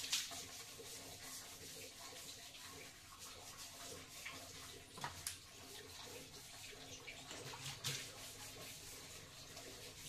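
Wet sponge scrubbing a ceramic toilet tank: a faint wet rubbing and sloshing, with a few small knocks about midway and near the end.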